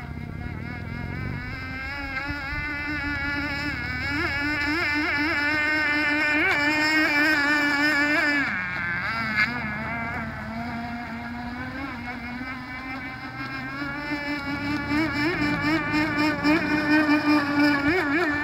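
Small 2.5 cc nitro glow engine of a radio-controlled boat running at speed: a high, buzzing whine that wavers in pitch and swells and fades as the boat moves about, dropping in pitch for a moment about halfway through.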